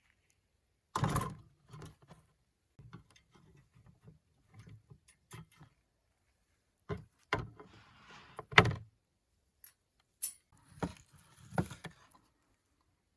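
Irregular knocks, clicks and rustling of objects being handled, with a few sharper knocks about a second in, around the middle and near the end.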